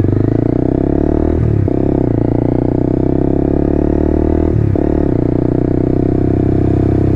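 Honda motorcycle engine accelerating hard, its pitch climbing steadily in each gear, with two upshifts about one and a half and four and a half seconds in.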